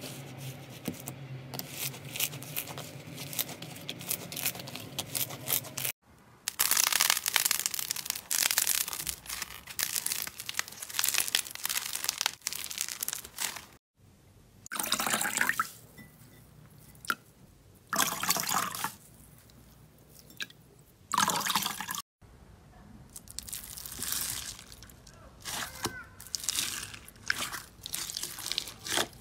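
Hands working slime and a wet sponge in a run of short clips: wet squishing and crackling as slime is pressed, and a sponge squeezed over a bowl three times with wet squelches. The sound changes abruptly three times as the clips cut.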